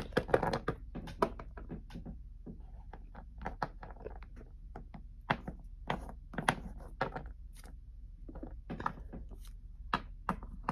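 Hard plastic Littlest Pet Shop figurines handled and set down on a wooden tabletop: an irregular scatter of light clicks and taps, a quick cluster at the start and then single knocks about every second.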